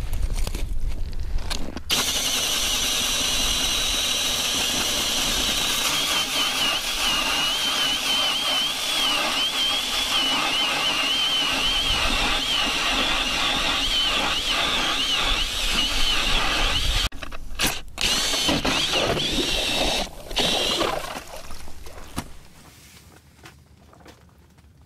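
Milwaukee cordless drill spinning an 8-inch K-Drill ice auger through the ice, its motor whining with a wavering pitch for about fifteen seconds. Near the end it cuts out and restarts a couple of times, then stops; the owner wonders whether the drill's switch is bad in the cold.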